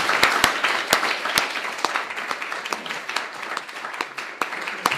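Audience applauding: many hands clapping together, with a few sharper single claps standing out above the rest.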